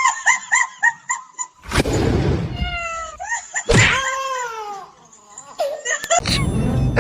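A cat vocalizing: first a quick run of short chirping calls, then two longer meows that fall in pitch, each one joined by a sudden burst of noise.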